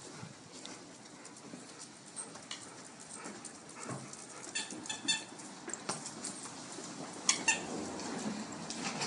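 Dogs giving short, high-pitched whimpers, a few in a cluster about halfway through and again near the end.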